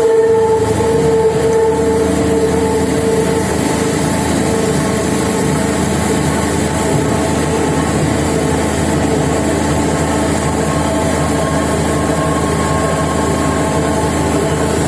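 External pin milling machine with a 750 mm cutter running through a single-plunge cut: a loud, steady mechanical noise with several steady humming tones. The strongest hum fades over the first few seconds as a rougher low rumble takes over.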